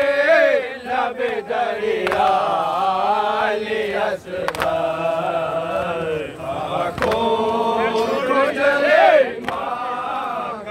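A crowd of men chanting a Muharram lament together, long sung lines rising and falling in unison.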